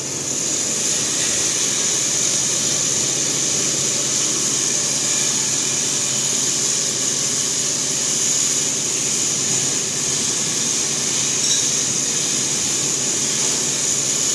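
Diesel engine running steadily, with a constant high-pitched hiss over the engine note.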